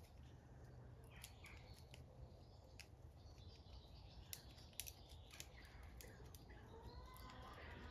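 Faint outdoor ambience: birds chirping softly, scattered small clicks and rustles in leaves and gravel, over a low rumble. A short wavering call comes near the end.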